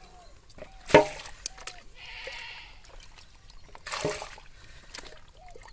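Plastic bucket scooping muddy water out of a shallow hole: two sharp splashes, about a second in and again about four seconds in, with water trickling and sloshing between them.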